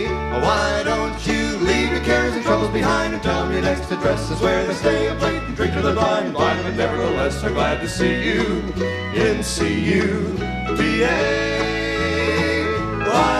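Background music: an upbeat old-time instrumental passage of plucked strings over a bass line that steps from note to note about twice a second.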